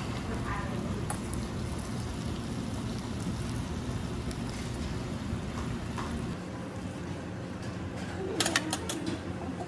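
Spicy stir-fried pork (jeyuk bokkeum) sizzling steadily on a cast-iron griddle kept hot over a tabletop burner, with a few sharp clinks of tableware about eight and a half seconds in.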